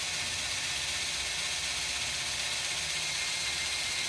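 Cordless drill running steadily, a 6 mm carbide bit boring into 10 mm cast aluminium. It is slow to cut through because the drill is underpowered and not fully charged.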